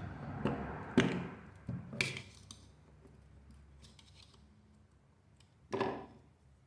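Metal clutch basket parts clinking and knocking as they are handled on a workbench: sharp clacks about a second and two seconds in, lighter clicks between, and another clack near the end.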